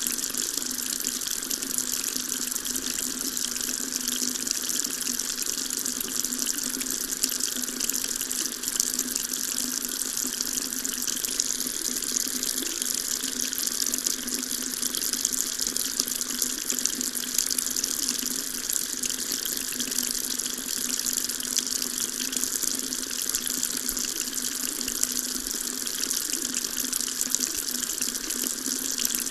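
Water tap running steadily, a continuous stream splashing with an even hiss and no change in flow.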